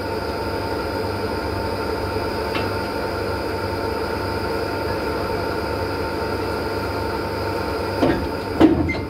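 Steady mechanical hum of a standing train, with several constant tones. Two short louder knocks come near the end.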